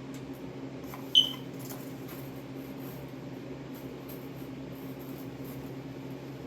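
Light handling ticks from cardboard marquee pieces being fitted together, with one short, sharp high squeak about a second in, over a steady low hum.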